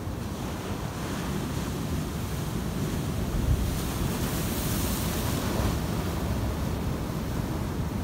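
Pacific Ocean surf breaking and foamy whitewater washing up the shore, with wind buffeting the microphone and one sharper gust thump about three and a half seconds in. The wash grows hissier just past the middle.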